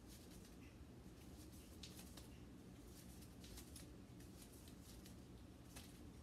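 Near silence with faint light rustles and ticks from a paper karambit being flicked and caught in the hand, a few of them a second or two apart.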